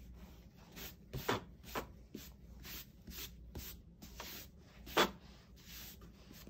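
Quick, irregular rubbing strokes across a sketchbook's paper page, roughly two a second, as a pencil drawing is erased and the eraser crumbs are swept off; one stroke about five seconds in is the loudest.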